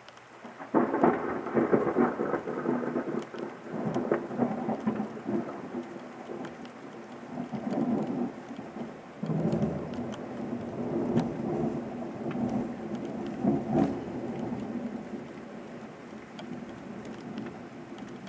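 Thunder rolling in a long rumble that starts about a second in, swells again several times and slowly dies away, over steady rain.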